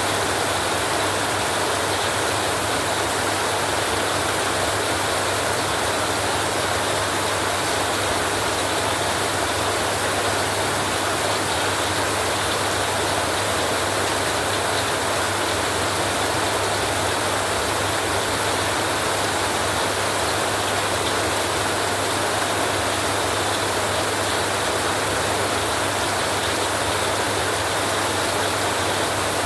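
Heavy rain on a metal roof, a dense, steady hiss with a steady low rumble underneath.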